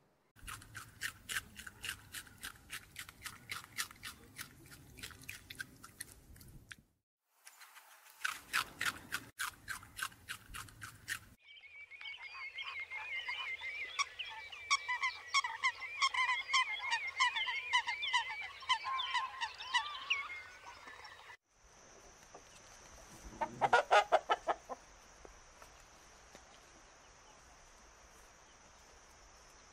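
A run of fast, evenly spaced clicks, then a purple swamphen calling with a long, wavering chatter for about ten seconds. Near the end, chickens give a short loud burst of clucking over a steady high whine.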